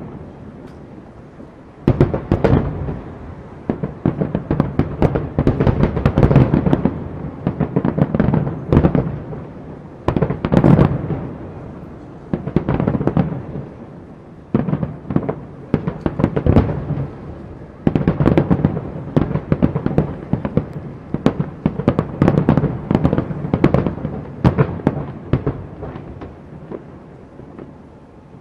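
Aerial fireworks display: volleys of shell bursts and rapid crackling pops come in waves every two to three seconds, with short quieter lulls between them.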